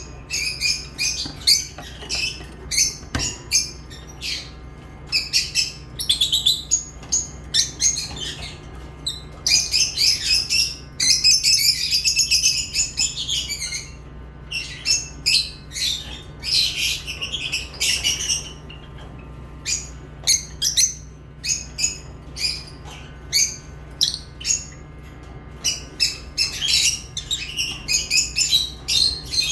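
A group of lovebirds chirping and squawking in quick, short, high-pitched calls, with a dense stretch of nonstop chatter about eleven seconds in. A steady low hum runs underneath.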